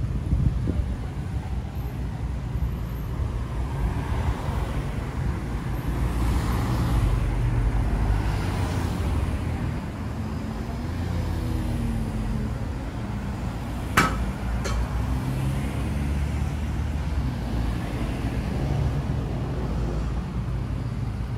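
Road traffic on a city street: a steady low rumble of engines and tyres that swells as vehicles pass, with a sharp click about two-thirds of the way through.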